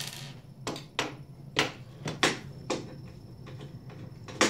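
Hand screwdriver taking screws out of a metal display frame: a string of short, sharp clicks and taps, roughly two a second, over a low steady hum.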